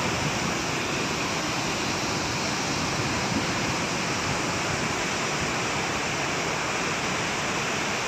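Bhogatha waterfall in flood: a steady, even rush of a great volume of falling water.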